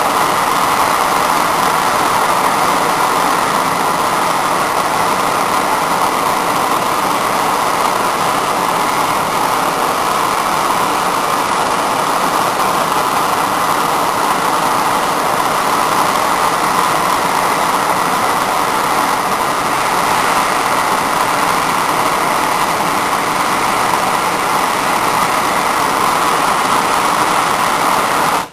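Bernzomatic self-lighting hand torch burning with a steady, loud hiss as its flame heats a wire terminal for soldering.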